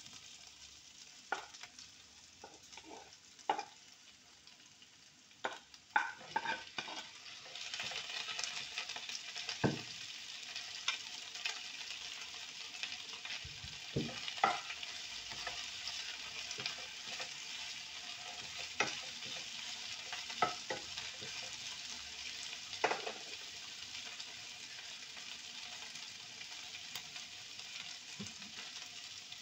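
Food frying and sizzling in a frying pan on a gas burner, with a wooden spatula scraping and tapping against the pan as it is stirred. The sizzle grows louder about seven seconds in.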